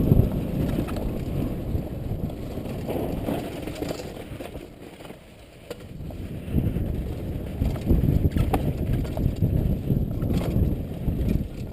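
Wind buffeting the microphone and edges scraping over snow during a fast downhill ride, dropping away briefly about halfway through, then returning.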